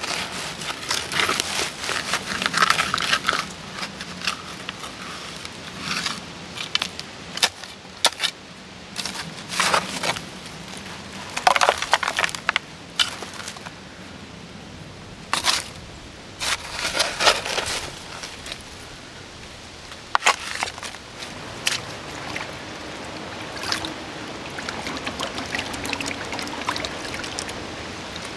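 A shovel digging into creek gravel and dry leaf litter, with irregular scraping and crunching strokes. Near the end this gives way to a steadier sound of water being swirled and trickling in a shallow pool as a gold sample is panned.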